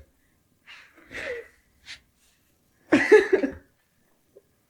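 A few short, breathy vocal sounds with gaps of silence between them, the loudest a half-second pitched call about three seconds in.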